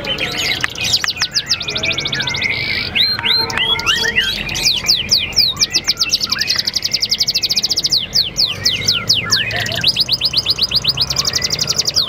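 Domestic canary singing a long unbroken song of quick falling whistles and rapid trills of repeated high notes. The trills come in stretches of about a second or two, near the start, in the middle and again near the end.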